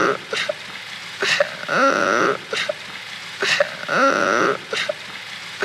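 Cartoon crying sound effect played in a loop: a wavering wail repeats about every two seconds, with a few short clicks between the wails.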